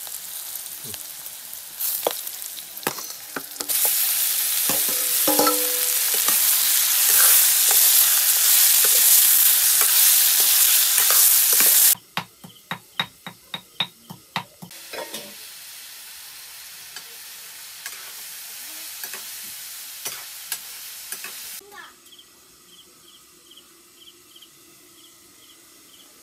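Sliced onions frying in hot oil in a steel wok, a loud steady sizzle that grows louder about four seconds in. Around halfway the sizzle drops away to a quick run of sharp clicks, about four a second, like a utensil knocking, then a quieter sizzle returns and stops near the end.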